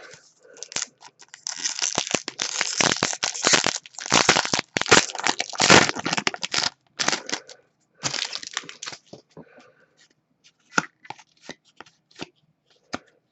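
Crinkling and crumpling of a plastic-foil hockey card pack wrapper. This is followed by scattered light clicks and taps as the cards are handled.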